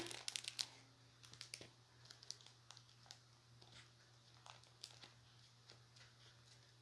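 Faint crinkling of the plastic packaging of a sheet face mask as fingers pick at it to get it open: scattered small crinkles and ticks.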